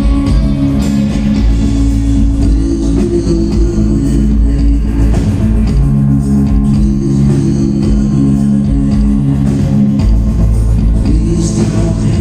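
Rock band playing live and loud: electric guitars, bass guitar and drum kit, with sustained droning guitar chords.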